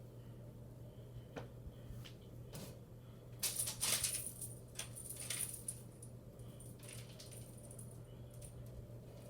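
A thrown small object struck by the spinning ceiling fan, clattering and jingling in two bursts about three and a half and five seconds in, after a few light clicks. A steady low hum runs underneath.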